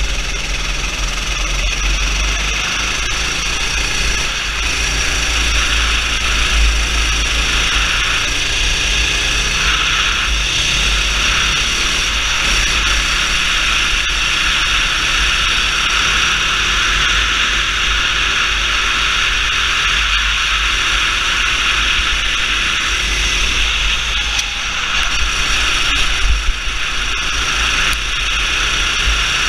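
Go-kart engine running at high revs under way, heard from an onboard camera with steady wind rumble on the microphone. The engine note dips briefly a few times, and a short louder rattle comes near the end.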